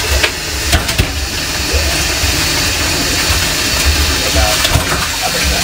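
Kitchen tap running into a stainless steel sink, the stream splashing over raw meat being rinsed under it, with a few sharp clicks in the first second.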